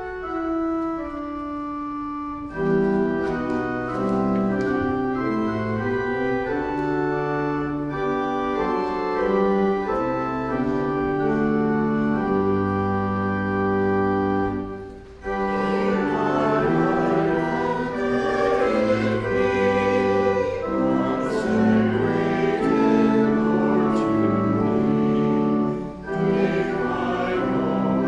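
Church organ playing chords alone, then about halfway through a small choir begins singing with the organ accompanying.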